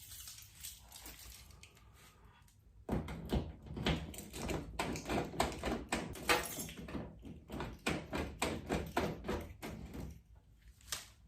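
Quick, irregular clicking and rattling of a pickup truck's manual door lock and latch being worked, starting about three seconds in and stopping about a second before the end, with one last sharp click.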